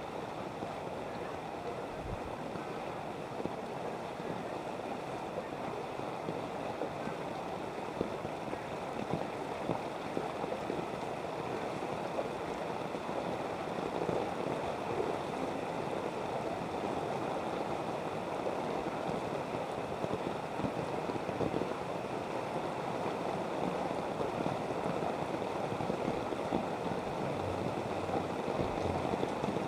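Floodwater sloshing and splashing steadily as someone wades through it, with small irregular splashes throughout.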